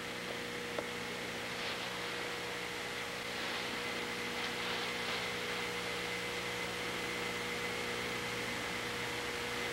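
Steady hiss and hum with no distinct event, with one faint click about a second in.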